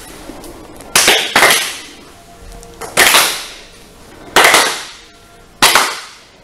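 A group of people clapping together in unison: five loud claps, two in quick succession about a second in, then three more over a second apart, each smearing out briefly as the group's hands land slightly out of step.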